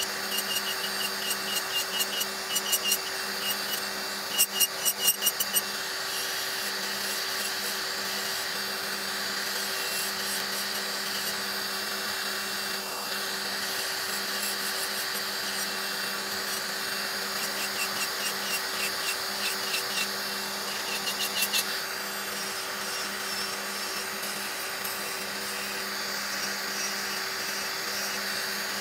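Electric nail drill (pen-style nail machine) running with a steady motor hum as its bit files gel off a fingernail. A rapid clicking chatter rides on it during the first few seconds and again about three-quarters of the way through.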